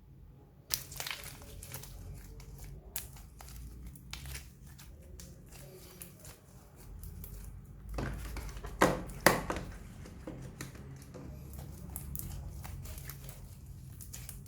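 Slime being squeezed and stretched by hand, with dense crackling and clicking and two loud pops a little past halfway.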